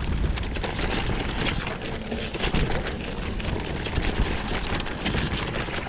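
Mountain bike riding fast down a dirt singletrack: tyres rolling and crackling over the ground, with a dense, continuous rattle of clicks and knocks from the bike over the bumps.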